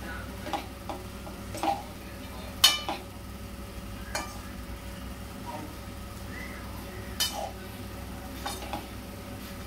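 Spoon scraping and clinking against a metal kadai as noodles are stirred and tossed, in a scattering of short separate clinks, the loudest about two and a half seconds in, over a steady low background hum.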